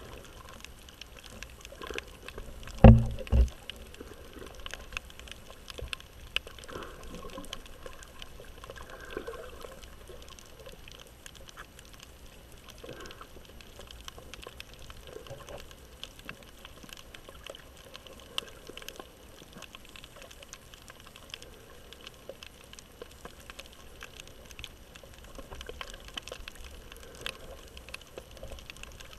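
Underwater reef ambience heard through an action camera's waterproof housing: a steady wash of water noise with a constant crackle of faint clicks. About three seconds in come two loud, low thumps in quick succession.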